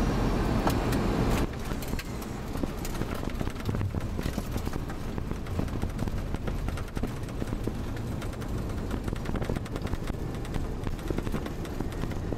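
Boeing 737-300 on its landing roll, heard from the cockpit: a steady rumble of engines and wheels with many irregular knocks and rattles from the runway. A louder noise drops away about a second and a half in.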